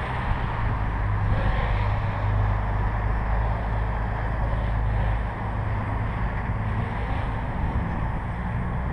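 Wind buffeting the microphone as a low rumble, the loudest sound, easing a little about five seconds in. Over it, the buzz of the Armattan CNC 355 quadcopter's motors and propellers, distant, swelling and fading a few times with the throttle.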